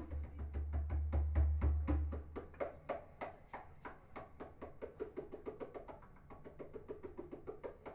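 A live band's rhythm section playing: bass notes for about the first two seconds, then the bass drops out, leaving the drums ticking out quick, evenly spaced clicks.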